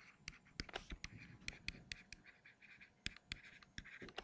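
Pen stylus writing on a tablet screen: faint scratching strokes broken by sharp little taps, several a second, as letters are put down.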